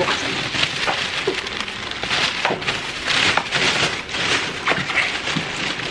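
Thin clear plastic bag crinkling and rustling continuously as it is pulled off a boxed appliance, a dense run of sharp crackles.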